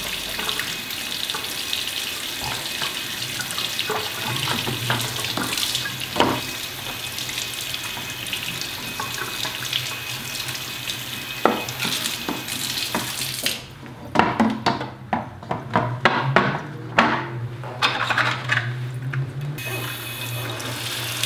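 Kitchen tap running steadily into the sink while plastic grow-kit channels are scrubbed with a sponge and rinsed under the stream. About two-thirds of the way through the water sound softens and small plastic pieces knock and clatter under the tap, with a low steady hum underneath.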